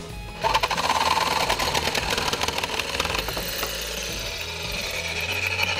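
Corded reciprocating saw (sawzall) with a metal-cutting blade cutting through 3/4-inch PVC pipe held in a vise, making a fast rasping buzz. Near the end the blade is out of the cut and the saw runs on briefly with a steady whine.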